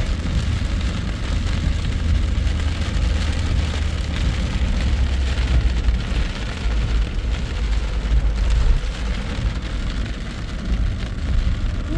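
Heavy rain beating on a moving car, over the steady low rumble of the car and its tyres on a flooded road.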